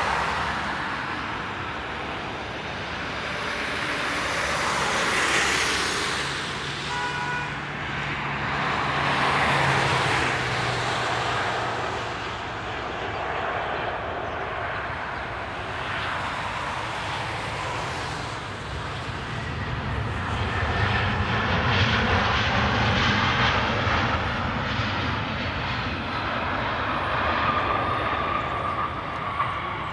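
Jet engines (CFM56-7B) of a Scandinavian Airlines Boeing 737-700 on final approach and landing, a loud continuous noise that swells and falls. The noise grows louder again during the rollout, with a steady whine near the end.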